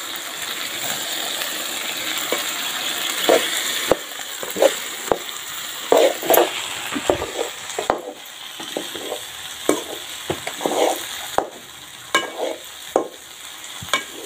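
Snails frying in a shallow metal pan, sizzling steadily. From about three seconds in, a long-handled ladle scrapes and knocks against the pan in irregular strokes as they are stirred.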